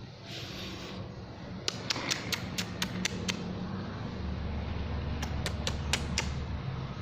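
A quick run of about eight sharp taps, then five more a couple of seconds later, over a low steady hum.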